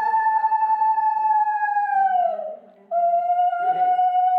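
Conch shell (shankh) blown in two long steady notes. The first ends with a drop in pitch about halfway through, and after a short breath a second, slightly lower note follows. This is the conch sounded during a Bengali blessing.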